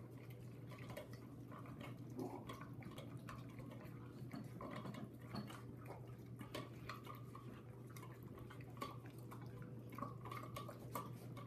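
Small dogs eating from bowls: faint, irregular clicks and clinks of the bowls and their chewing, over a steady low hum.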